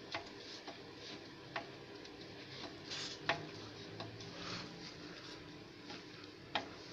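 Scattered light metallic clicks and taps, irregularly spaced, over a faint low hum: the dismantled engine's factory pistons being handled in their bores with the head off.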